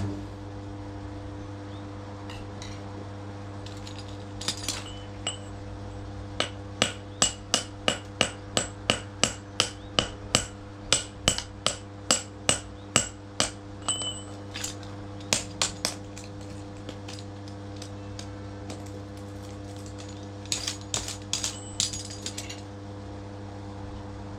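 A series of sharp metal-on-metal taps, about two to three a second, each ringing briefly, over a steady low hum. A few scattered taps come first, and a short cluster comes near the end.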